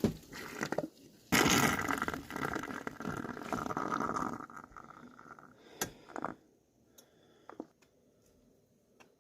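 Pot of boiled yakisoba noodles and water poured into a strainer: a rush of pouring water for about three seconds, followed by a few sharp clinks of the pot and strainer.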